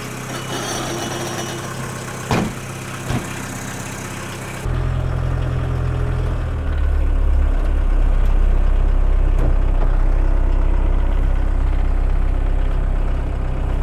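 1.6-litre turbodiesel engine of a Mk1 VW Rabbit running at idle, with the hood slammed shut a little over two seconds in and a second, lighter bang soon after. Partway through, the engine sound turns suddenly deeper and louder, then grows louder again as the car pulls away.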